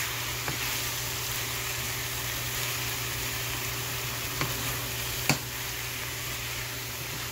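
Ground beef with onion and garlic sizzling steadily in a frying pan while being stirred with a wooden spoon. Two short knocks come a little past the middle, the second louder.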